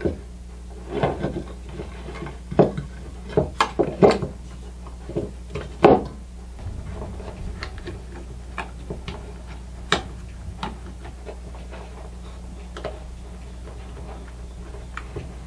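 Parts of an old Craftsman router being handled and fitted together during reassembly: irregular clicks, taps and rubbing of the housing and switch parts. The clicks are busiest in the first six seconds, then come only now and then.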